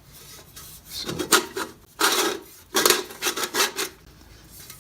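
Steel plates of an armet helmet scraping and rubbing against each other in about four short strokes, as the hinged pieces are handled.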